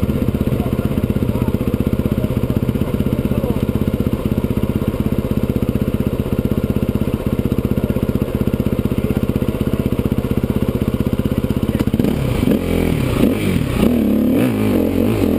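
Enduro dirt bike engine ticking over with a steady, even beat, then revving up and down about twelve seconds in as the bike pulls away over rough ground.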